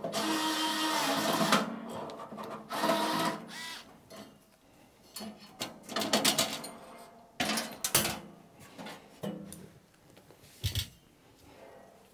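Small electric screwdriver running in two short bursts in the first few seconds, backing screws out of circuit boards in a metal battery case, followed by scattered clicks and knocks as parts are handled.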